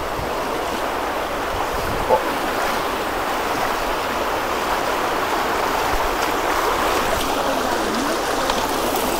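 Flood-swollen stream rushing steadily, with a short sharp knock about two seconds in.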